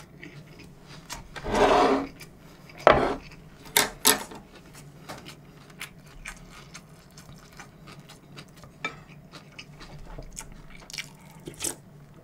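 Tableware handled on a wooden table during a meal. About a second and a half in there is a loud scraping rub, as of a bowl slid across the table, then several sharp clinks and knocks of bowls and a spoon, and after that a few scattered small clicks.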